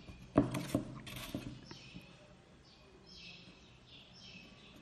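Clear plastic ruler and set square handled on a drawing sheet, clicking and tapping a few times in the first second or two, then several short, faint pencil strokes scraping on paper along the straightedge.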